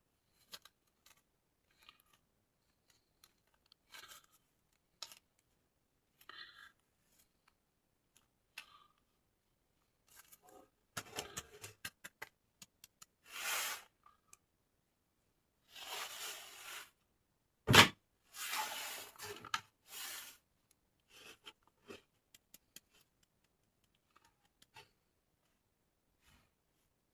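Toy packaging being handled and opened: scattered light clicks and rustles, several longer tearing or cutting noises in the middle, and one sharp knock about two-thirds of the way through.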